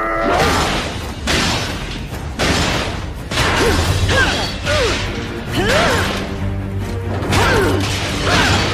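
Animated robot-fight sound effects: a string of heavy smashing, metallic hits and whooshes about once a second over a dramatic music score, with brief rising-and-falling tones between the hits.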